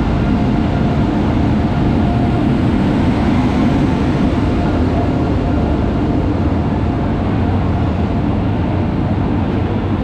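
Electric-hauled passenger express train pulling into the station, its locomotive and coaches rolling past close by with a steady, heavy rumble of wheels on rail.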